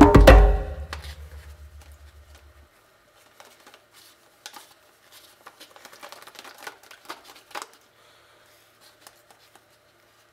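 Background music with a percussive beat, ending about a second in. Then faint scattered clicks and taps as a plastic cup holding a silver pendant and steel tweezers are handled.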